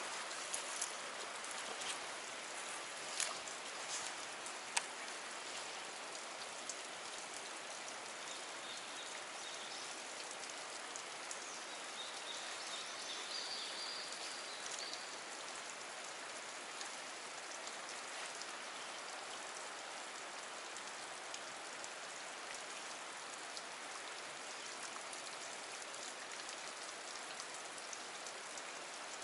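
Steady hiss of creek water running over rock, with a few sharp clicks in the first five seconds.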